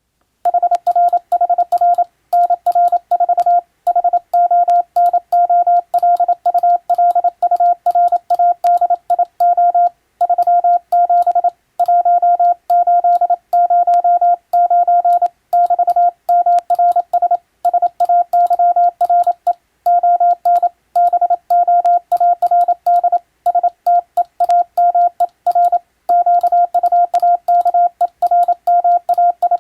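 Morse code (CW) sent as a single steady beep tone, keyed rapidly on and off in dots and dashes, with short pauses between characters and words: telegram-style Morse sending practice.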